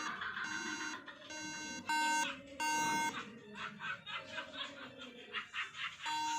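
MacBook Pro sounding its startup error beeps: three steady, evenly spaced beeps about half a second each, then a pause of about three seconds before the next set begins near the end. A repeating three-beep code from a Mac at power-on is the sign that no working memory (RAM) is detected. Faint background sound runs underneath.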